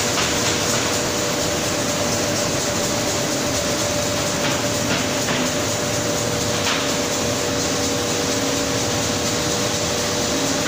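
Fish-processing conveyor line running: a steady machine whir with a constant low hum tone and a few light clicks.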